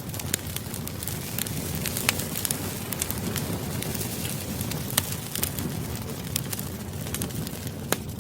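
Campfire burning: a steady low rumble of flames with irregular sharp crackles and pops of burning wood, a few louder snaps among them.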